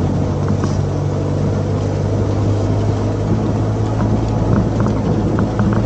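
Open-top 4x4's engine running steadily at low speed as it crawls along a rough dirt trail, with scattered light clicks and rattles from the body over the bumps.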